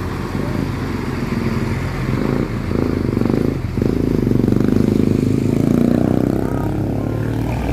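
Bus engine running with a deep, pulsing rumble, growing louder about four seconds in as it revs or draws closer.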